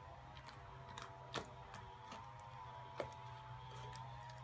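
Borax slime being kneaded and squeezed by hand, giving faint wet clicks and pops, with two louder pops about a second and a half apart. A faint steady hum runs underneath.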